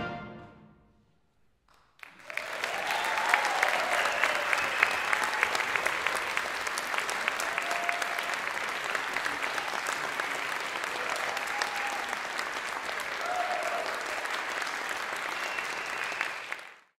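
The big band's final chord dies away in the hall's reverberation into near silence. About two seconds in, the audience starts applauding, with a few short shouts, and the clapping holds steady until it drops off at the very end.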